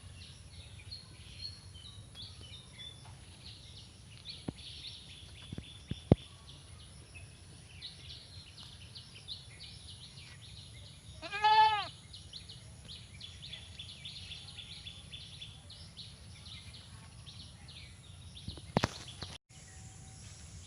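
A goat bleats once, about halfway through: a short call with a rise and fall in pitch, the loudest sound here. A steady high chirring runs behind it, and a few sharp clicks are heard.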